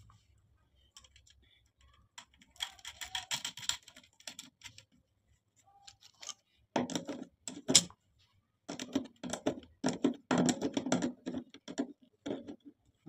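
Metal clicking and rattling as wires and terminals are handled on the flange of an electric water heater's heating element: a quick run of clicks about three seconds in, then heavier knocks and rattles in the second half.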